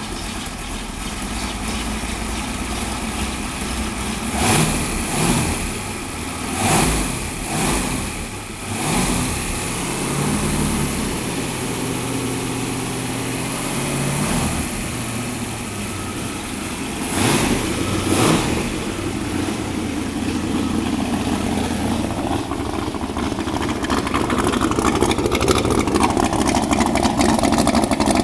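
383 Chevrolet small-block V8 with a solid roller cam, running in a boat on its first startup, with several short throttle blips a few seconds in and two more past the middle. Near the end it runs louder through the transom exhaust outlets, which pour out cooling water.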